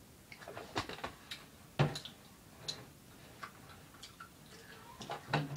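Irregular light clicks and knocks of cups and a blender jar being handled and set down on a table, with one firmer knock about two seconds in.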